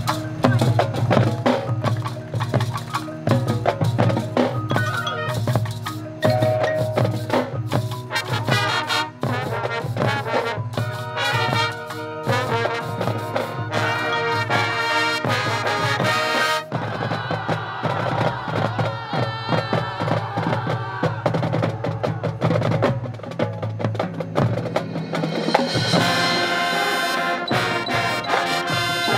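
Marching band playing a percussion-driven passage, with drums and mallet percussion beating out a busy rhythm under the horns. Partway through, it changes to longer held brass chords, which grow fuller and brighter near the end.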